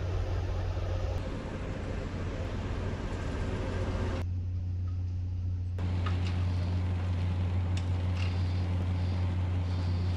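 Steady low hum of a train locomotive's engine at a station. From about six seconds in, scattered sharp clicks, camera shutters, sound over it.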